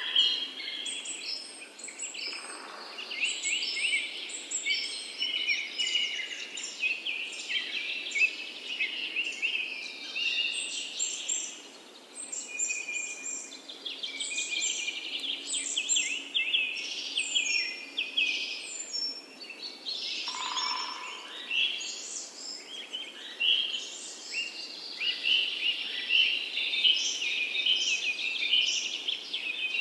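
Dense chorus of many songbirds chirping and trilling at once, unbroken, with a brief lower call about twenty seconds in.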